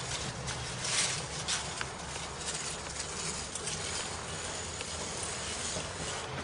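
Light footsteps and scattered soft taps on pavement over a low, steady hum.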